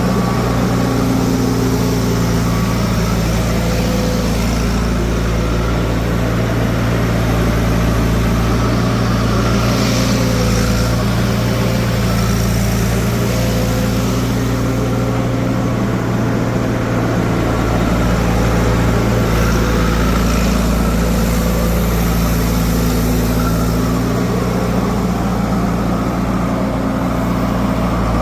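Heavy diesel engine running steadily at low revs, with no clear revving or bucket impacts.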